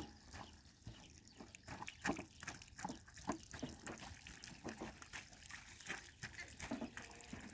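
Water from a garden hose splashing and dripping onto a child's bare feet and a tarp, in irregular small splashes.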